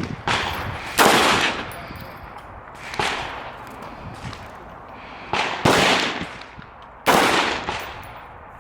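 Gunshots on a shooting range: about six single shots at uneven intervals, each a sharp crack with a decaying tail. The loudest come about a second in and in the last third.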